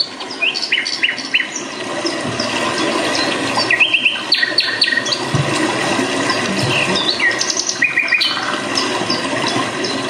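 Recorded forest soundscape: many birds chirping and calling in short rising whistles and quick runs of repeated notes, over a steady background hiss.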